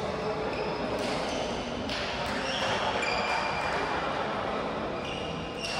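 Badminton-court shoes squeaking in short high chirps on a sports-hall floor during play, with a few sharp knocks. Indistinct voices echo in the large hall.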